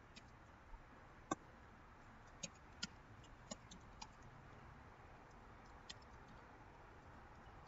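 Faint, sparse keystrokes on a computer keyboard, about eight separate taps, most of them in the first half, against near silence.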